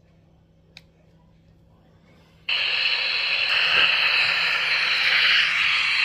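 SB7 spirit box switching on about two and a half seconds in: a sudden loud, steady hiss of radio static as it sweeps. A faint click comes just before.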